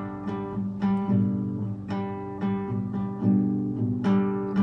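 Slow dream-pop instrumental passage: guitar chords and bass with a new chord struck about once a second, no singing.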